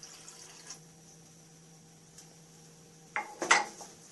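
Wooden spoon stirring sauce in a stainless steel saucepan: after a quiet stretch, the spoon knocks and scrapes against the pan a few times, sharply, about three seconds in.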